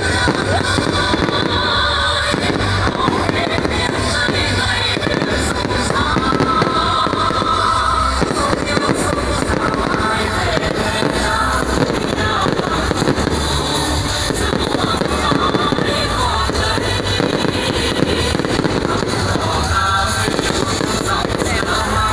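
Fireworks bursting and crackling in rapid succession, with music playing alongside.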